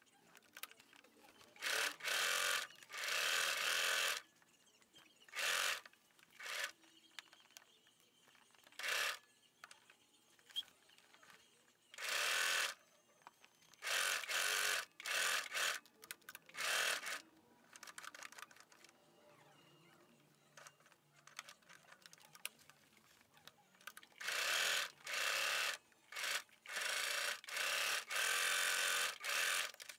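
Electric sewing machine running a straight stitch through layered fabric in short stop-start runs of about half a second to a second each. It pauses between runs while pins are pulled from the seam. The runs come in clusters in the first half and again near the end.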